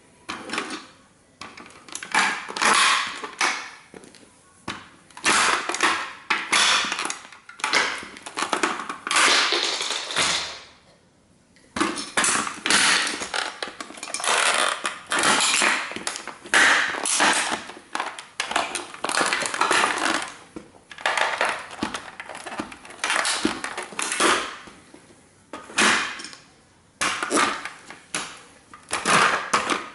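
A 1:18 scale model toy car cracking and crunching under Nike Air Max 95 sneaker soles as it is stomped and trampled, in repeated irregular crunches, with a short pause about ten seconds in.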